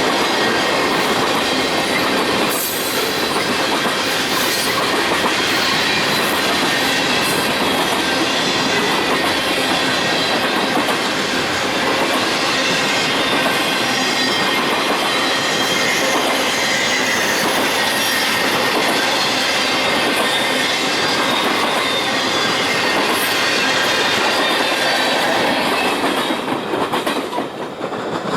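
Railroad cars rolling past close by, a steady, loud noise of wheels on rail that falls away near the end as the train's last cars go by.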